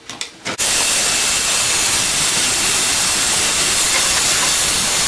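Shop vacuum switched on about half a second in and running steadily and loudly, sucking sawdust out of the thickness planer's jammed column housings.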